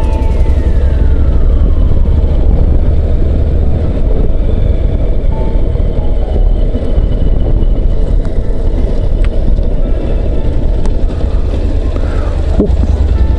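Steady wind rush and engine noise from a Honda NC750X motorcycle under way, heard from the rider's camera.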